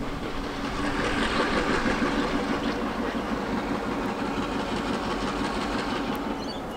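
Heritage diesel locomotives led by NSW 42 class 4201 hauling a passing train: a steady engine drone with rail noise, loudest a second or two in.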